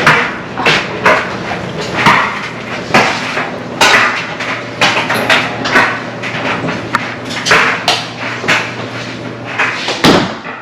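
A run of sharp knocks and clatters, about one a second and unevenly spaced, over a steady low machine hum.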